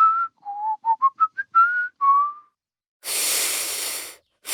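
Whistling a short tune of about ten clear separate notes stepping up and down. Then, about three seconds in, a long breathy hiss of blown air with no note: a failed attempt to whistle.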